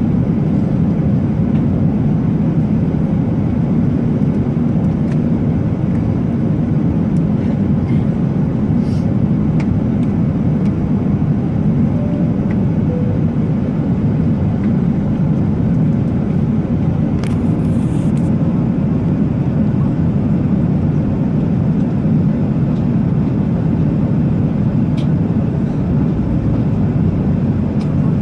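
Steady low rumble of an Airbus A380 in flight, even and unchanging throughout.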